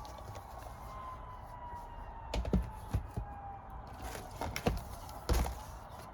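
A handful of sharp clicks and knocks of things being handled, clustered from about two and a half to five and a half seconds in, over a faint distant siren slowly falling in pitch.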